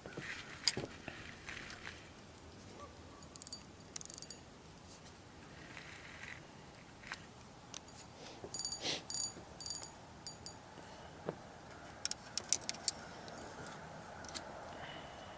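Faint scattered clicks and short clusters of light metallic jingling, as of small hard objects being handled, over a quiet background.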